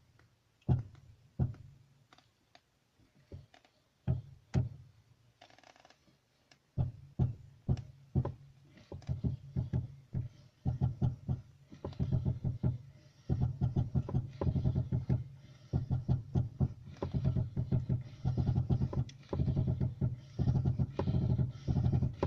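Moskvich 2141 steering rack knocking and clicking at its splined joint as the steering is worked, a sign of play in the splines. Single knocks at first, then a rapid, almost continuous clatter of knocks from about a third of the way in, over a steady low hum.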